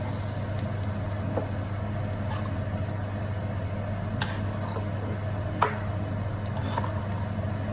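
Steady low mechanical hum, with a few light clicks of a cooking utensil against the pan scattered through it.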